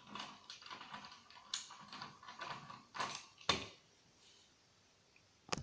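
Light clicks and scrapes of a screwdriver working at star (Torx) screws inside a plastic set-top box case. This goes on for the first three and a half seconds, then one sharp click comes near the end.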